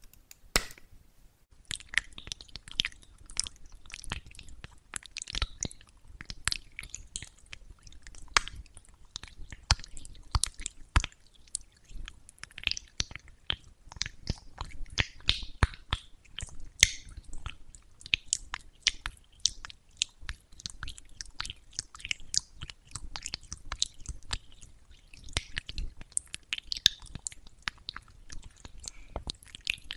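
Pink stone facial roller rolled over a cream-coated plastic mannequin face, making rapid, irregular wet, sticky clicks and crackles that start about two seconds in.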